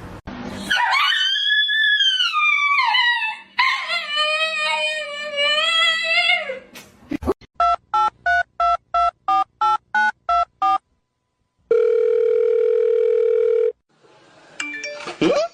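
A string of about eleven short electronic beeps, roughly three a second, like telephone keypad tones, then a steady tone lasting about two seconds. The beeps are preceded by two long wavering pitched calls whose source isn't known.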